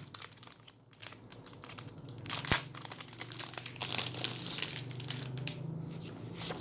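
Plastic crinkling and rustling as the keyboard and its plastic are handled, with scattered clicks and one sharp click about two and a half seconds in.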